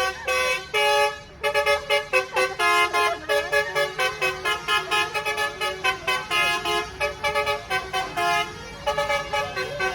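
Bus 'telolet' horn, a multi-tone musical air horn, playing a tune. It sounds a few longer notes, breaks off briefly about a second in, then runs into a quick string of short notes of changing pitch, about three a second.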